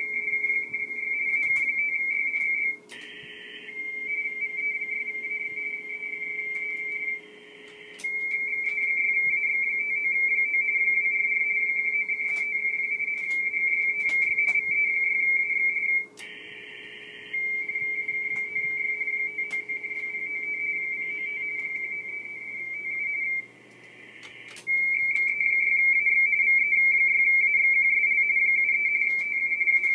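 Radioteletype (RTTY) signals from an HF transceiver's speaker: a fast two-tone warble keyed between two close pitches. Several times it breaks off into a second or so of band hiss before the next signal comes in.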